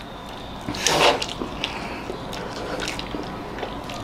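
Wet mouth-eating sounds of people eating whipped-cream black forest cake straight from plates without hands: soft squishy smacks and small clicks, with a louder wet burst about a second in.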